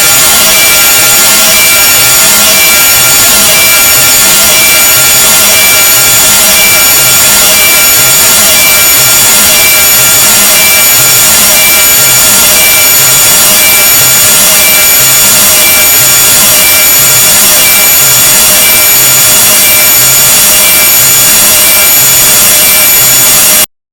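A deliberately harsh, grating noise sound effect at full loudness: a dense hiss laced with shrill steady tones, cutting off suddenly near the end.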